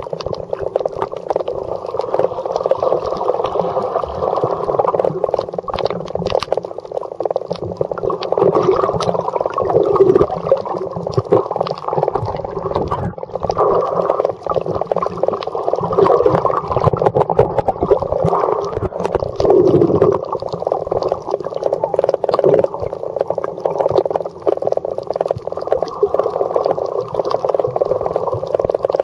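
Muffled underwater sound of water churning and gurgling around a camera held below the surface, a continuous rushing that swells and fades unevenly, with scattered faint clicks.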